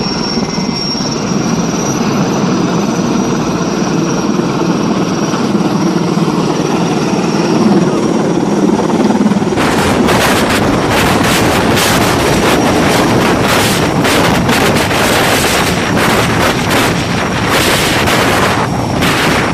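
Sikorsky S-64 Skycrane helicopter hovering low, its rotor beating under a steady high turbine whine as it lowers its snorkel hose to draw water. About ten seconds in, the rotor downwash reaches the microphone and the sound turns into heavy, gusting wind buffeting over the rotor and spray.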